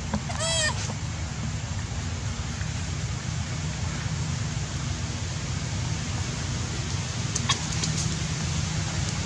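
Steady low background rumble throughout. About half a second in comes a brief, rapid high-pitched squeaky call, and a few faint clicks come near the end.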